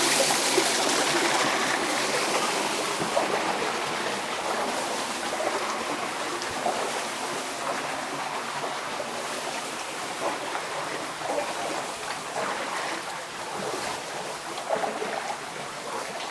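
Water pouring and running into the mine tunnel through the rock, a steady rushing that is loudest at first and slowly fades over the span; this inflow is what is flooding the adit. A few small splashes or knocks sound here and there.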